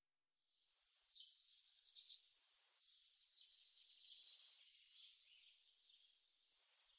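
European robin giving a thin, high call four times, each note drawn out for about half a second, with gaps of silence between.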